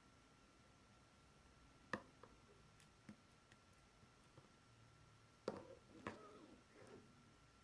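Marbled slime being handled: a few sharp clicking pops, the loudest about two seconds in and about five and a half seconds in, then a second or so of soft crackling squish, over near silence.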